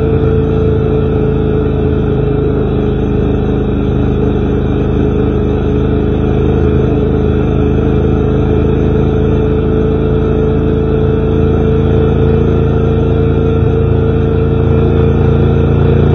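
A vehicle's engine runs steadily while driving, with a constant hum over road and wind noise.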